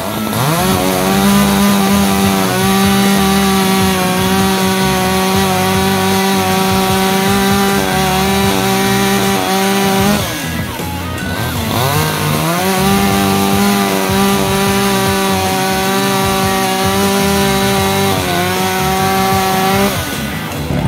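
Echo CS-620P two-stroke chainsaw running near full throttle, cutting firewood. Its high, steady note drops and climbs back about ten seconds in, with a shorter dip near the end.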